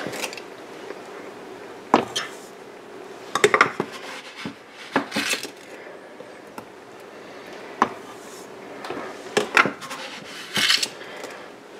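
Scattered clinks and knocks of a metal spoon against a glass measuring cup as eggs and sugar are stirred together, a few with a brief scrape.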